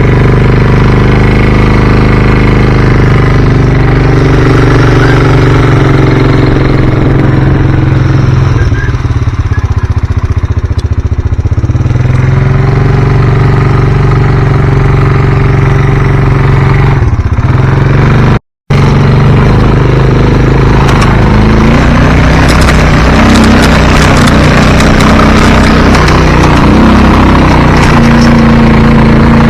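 A vehicle's engine running loud and close while being driven, its pitch dipping and recovering as it slows and speeds up. There is a brief break in the sound about two-thirds of the way through.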